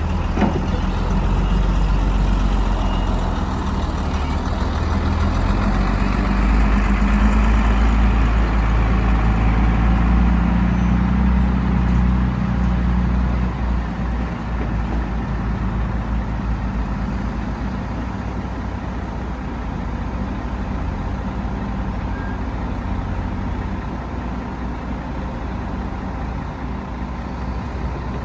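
Diesel engine of heavy earthmoving machinery running steadily, working harder for several seconds in the first half and then easing off.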